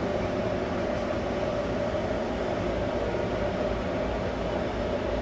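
Steady drone of a cruise ship's machinery under way: a constant low rumble with an even hum over it, unchanging.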